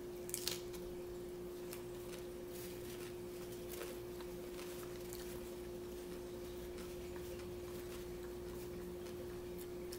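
Faint mukbang eating sounds: chewing a mouthful of hard-shell taco and a paper napkin rubbed over the hands, heard as scattered soft clicks, the strongest about half a second in, over a steady hum.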